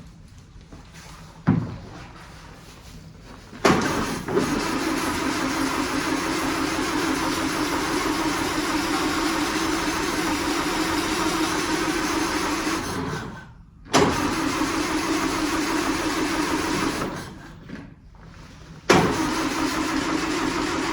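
1939 Austin 12 engine turned over on its starter motor in three spells, each beginning with a sudden clunk: the first lasts about ten seconds, the second about three, and the third starts near the end. The car is failing to start.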